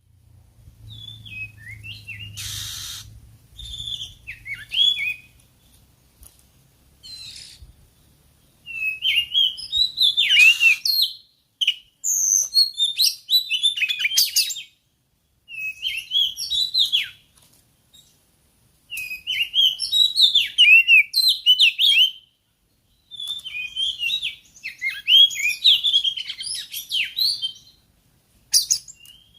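Oriental magpie-robin (kacer) singing: phrases of varied whistles and chirps lasting a few seconds each, separated by short pauses.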